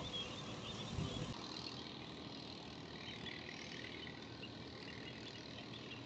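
Faint high peeping from a flock of ducklings over a steady background hiss.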